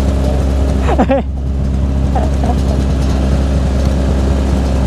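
Motorcycle engines idling at a standstill: a steady low drone from the Kawasaki Ninja ZX-25R's four-cylinder engine, fitted with a racing exhaust, and the bikes around it. A short voice cuts in about a second in.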